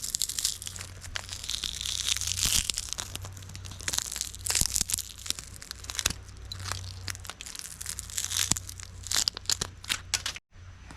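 Broken glass and debris crunching and crackling as it is crushed, a dense run of small sharp cracks and crinkles. It cuts out abruptly for a moment near the end.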